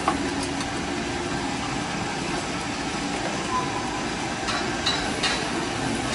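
Steady background hum, with a few light clicks about four and a half to five seconds in.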